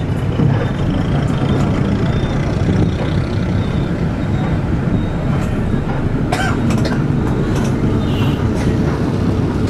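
Tour bus driving along the road, heard from inside the cabin: a steady low engine and road rumble, with a few short clicks or rattles a little past halfway.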